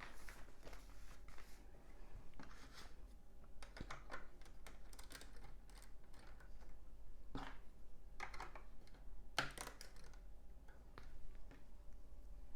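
Plastic LEGO bricks clicking and rattling as they are handled and pressed together. There are scattered sharp clicks throughout, the loudest about three quarters of the way in.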